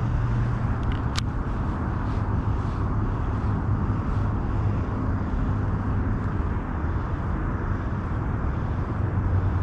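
Steady low rumble of distant motor traffic, with a low engine hum running under an even outdoor noise. A single sharp click comes about a second in.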